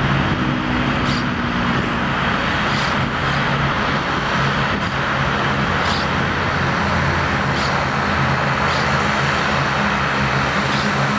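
Boeing 737-700's CFM56 jet engines at takeoff power: a steady, loud rush of jet noise as the airliner rolls and climbs away. Steady low tones underneath come from the spinning propellers of taxiing turboprops.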